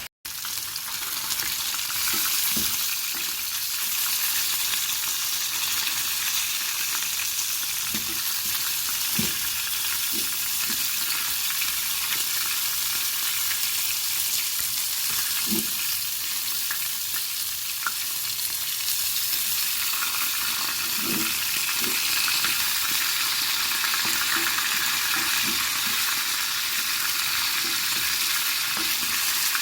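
Chicken breast frying in fat in a pan: a steady sizzle, with a few short low knocks scattered through it.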